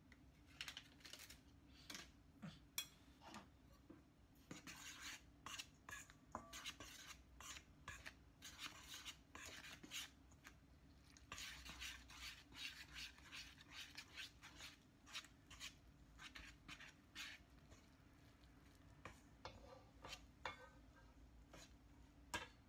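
A utensil scraping and clicking against a stainless steel mixing bowl while flour is stirred and mixed into a dough as water is added, in quick irregular strokes with bursts of faster scraping.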